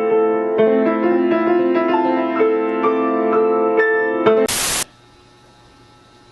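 Piano background music, broken off about four seconds in by a short, loud burst of hiss, after which only a faint hiss remains.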